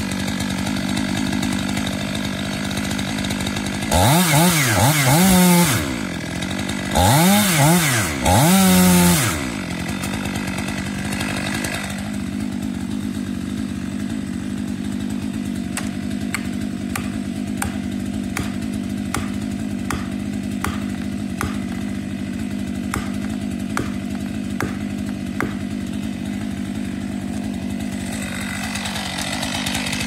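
Two-stroke chainsaw cutting into a poplar trunk, revving hard in three bursts during the first ten seconds, then idling steadily. Through the middle a row of light taps comes about once every three-quarters of a second over the idle.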